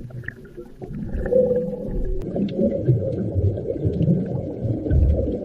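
Muffled underwater sound of scuba divers' exhaled bubbles from their regulators: low, uneven gurgling that gets louder about a second in, with faint ticks.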